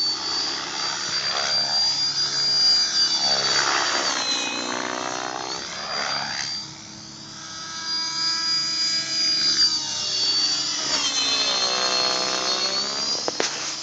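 Thunder Tiger X50-E electric RC helicopter flying, driven by a Hacker Turnado brushless motor: a steady high-pitched whine from the motor and drivetrain over the rotor noise, which swells and fades as the helicopter manoeuvres and passes. The whine dips in pitch briefly twice.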